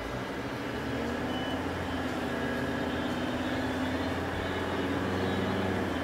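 Car engine and road noise heard from inside the cabin as the car pulls away and picks up speed, growing steadily louder.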